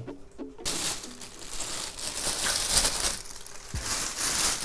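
Plastic bag wrapping crinkling and rustling as a wrapped motorcycle fairing panel is handled and unwrapped, starting suddenly about half a second in.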